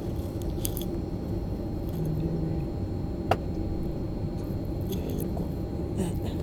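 Steady low rumble of an airliner cabin, its engines and airflow running evenly with a faint steady hum over it. One short sharp click sounds about three seconds in.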